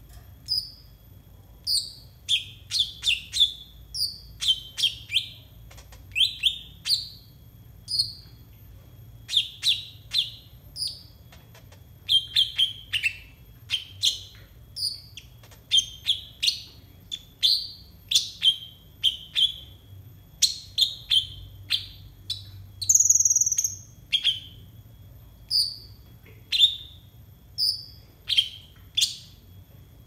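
Male konin (kolibri ninja) sunbird singing: a long series of short, sharp, high downslurred chirps, one or two a second with quick clusters, and one longer buzzy note about three-quarters of the way through.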